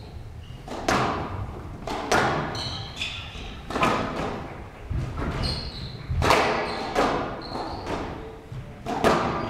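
Squash ball being hit back and forth on a glass court: sharp racket and wall strikes about every second, each ringing out briefly in the hall, with short squeaks of players' court shoes between them.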